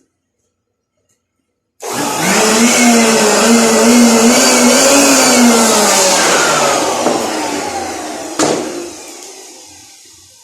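An electric motor starts abruptly and runs with a loud, wavering whine. It then slows down, its pitch falling and the sound fading, with a sharp click partway through the spin-down.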